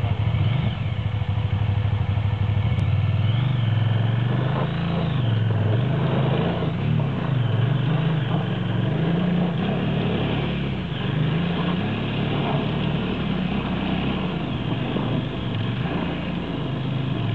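KTM 990 Adventure's V-twin engine revving up and down again and again as the heavy bike labours up a steep climb of loose sand and stones.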